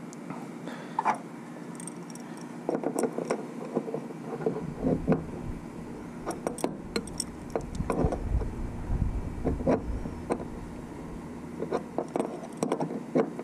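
Small wrench clinking and scraping against the metal fittings of a fuel pressure regulator as they are tightened: scattered sharp metallic clicks, with a low rumble through the middle.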